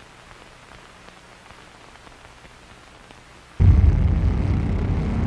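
A faint low hum, then a sudden deep rumbling boom about three and a half seconds in that carries on strongly.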